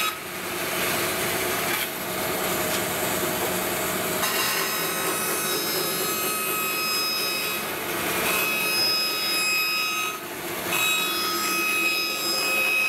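Bandsaw ripping glued-up hardwood panels lengthwise along the fence: steady cutting noise under a thin whine. The sound dips briefly a few times as one pass ends and the next is fed.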